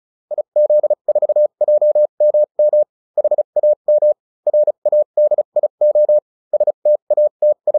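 Morse code sent as a single steady beep tone, keyed in short dots and longer dashes with brief gaps between characters.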